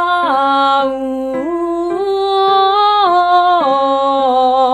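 A woman singing a vocal scale exercise around middle C: short notes stepping up and down in one unbroken breath, changing vowel as she goes.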